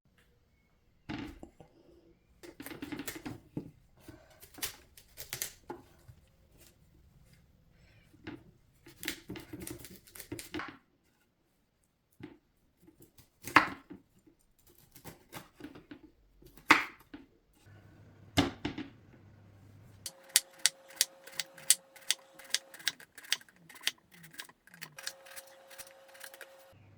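Knife chopping vegetables on a cutting board: irregular cuts and knocks at first, then a steady run of about two to three chops a second in the last several seconds.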